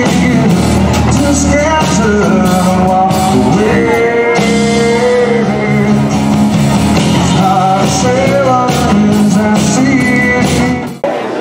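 A small live band playing a song: a male singer with acoustic guitar, and a drum kit. It cuts off suddenly near the end.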